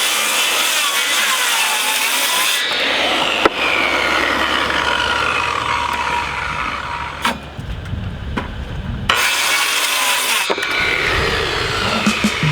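Electric circular saw cutting through wood, its motor whine dipping and recovering as the blade loads up, with a short let-up about eight seconds in before it cuts again.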